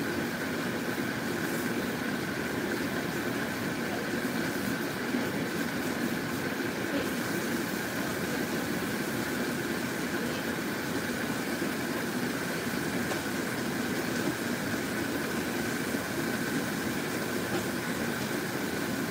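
A pot of soupy broth at a rolling boil on the stove, with a steady hum.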